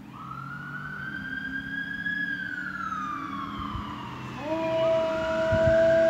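Police car siren wailing, its pitch rising and then falling slowly. About four and a half seconds in, a Siberian husky joins in with a long, steady howl at the sirens.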